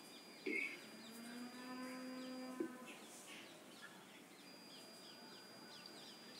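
Faint outdoor ambience of birds chirping again and again in short falling calls. About a second in comes one held, drawn-out lower call lasting about a second and a half.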